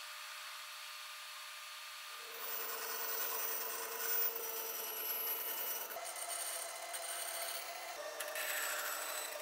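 A drill press boring into a plywood block for about the first two seconds, then a bandsaw cutting through plywood. The sound changes abruptly several times.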